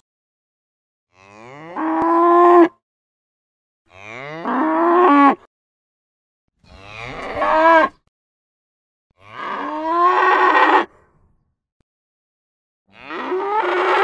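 Cow mooing: five separate moos, each about a second and a half long, sliding up in pitch at the start and then held, with dead silence between them.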